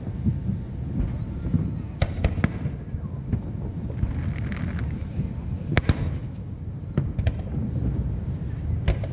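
Aerial fireworks shells bursting: a series of sharp bangs, the loudest about six seconds in, over a steady low rumble.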